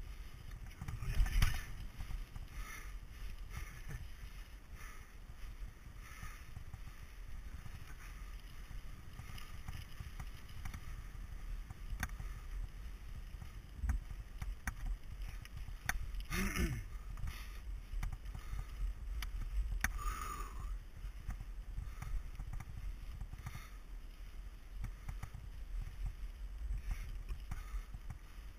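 Mountain bike riding a dirt forest trail: steady low wind noise on the microphone and tyre rumble, with scattered knocks and rattles from the bike over bumps. The loudest jolt comes about a second in, and there are further sharp knocks later on.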